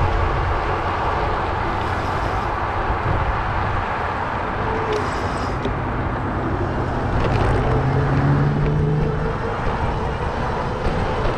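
City street traffic passing during a bike ride, a steady rush of road noise with low rumble. A vehicle engine climbs in pitch a little past the middle.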